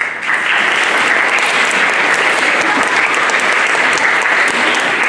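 Audience applauding, breaking out suddenly and holding steady.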